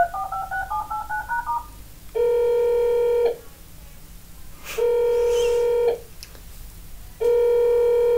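Alexa smart speaker playing a phone-call sound effect: a quick run of stepping dial tones, then three ringing tones, each about a second long and about two and a half seconds apart, as it 'calls Santa'.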